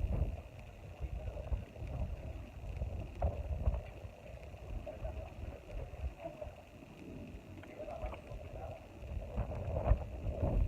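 Gusty wind buffeting the microphone: an uneven low rumble that rises and falls, with a sharper gust about ten seconds in.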